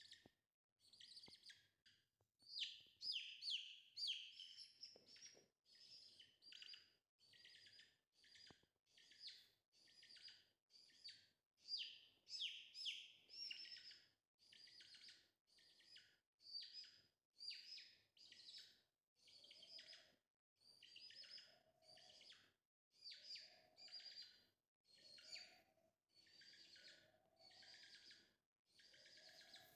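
A chick peeping over and over, about one short, falling peep a second, with quicker, louder runs of peeps a couple of seconds in and again about twelve seconds in.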